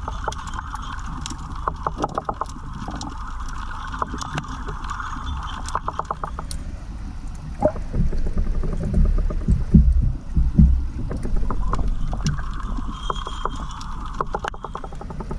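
Underwater sound picked up by a submerged GoPro: low rumbling water movement with many sharp clicks and crackles, and a steady hum that fades out about six seconds in and returns around twelve seconds.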